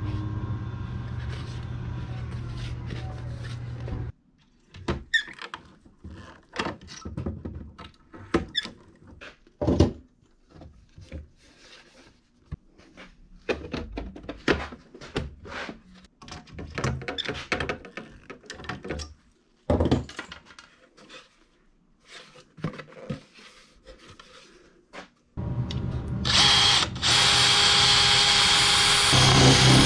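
Scattered clicks and knocks of aluminium angles and composite panels being handled and set down on a workbench. Near the end, a cordless drill/driver runs at speed, drilling through an aluminium-composite panel with a steady high whine, stopping briefly once and starting again.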